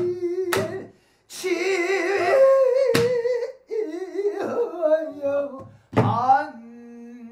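Pansori singing: a man's voice holds long sung notes with a wide, wavering vibrato. A buk barrel drum accompanies him with single sharp strokes about every two to three seconds, the loudest near the end.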